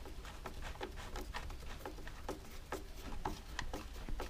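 Phillips screwdriver turning a small retaining bolt into a lawnmower's plastic air-filter housing: a run of faint, quick clicks, about three a second.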